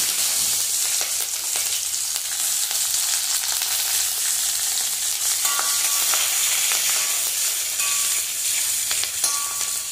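Chopped green chillies sizzling and crackling in hot oil in a kadai with mustard seeds and curry leaves, a steady hiss flecked with small pops. Near the end a slotted metal spatula stirs them through the oil.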